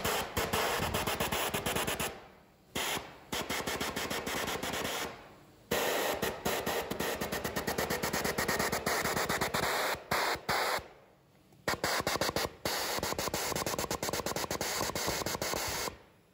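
Restored high-pressure (100-inch wind) organ windchest being tested on wind: its pneumatic pallet action fires in rapid-fire volleys of sharp clacks, like gunfire. There are four runs of a few seconds each, with short pauses between, and the sound stops near the end.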